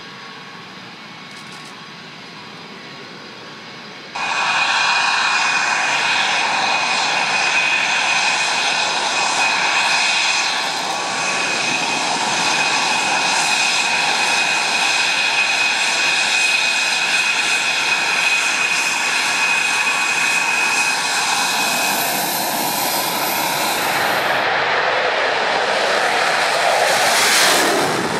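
Saab JAS 39 Gripen's jet engine, a Volvo RM12 turbofan, whining steadily as the fighter taxis close by; the sound becomes suddenly much louder about four seconds in and holds a high whine with several steady tones. Near the end the whine gives way to a broad jet roar that swells and fades, as the jet takes off.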